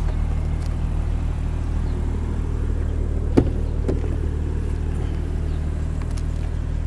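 BMW M135i's turbocharged straight-six engine idling steadily, with a sharp click about three and a half seconds in as the driver's door is opened.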